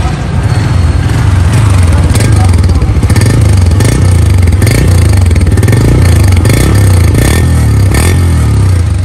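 Honda CB150F's 150 cc single-cylinder four-stroke engine running after a fresh start, heard close up at the exhaust muffler. Through the middle it is revved several times, its pitch rising and falling.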